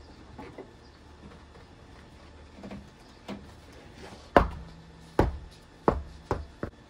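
A 37-inch Nitto tire on a 20-inch alloy wheel dropped onto a concrete driveway and bouncing: one heavy thud, then four more coming quicker and fainter. A few light knocks come before it.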